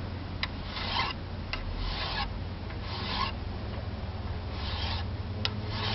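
Fine-toothed file being stroked across the side of a Norwalk juicer cutter blade clamped in a vise, about five separate swipes roughly a second apart, with light clicks between strokes.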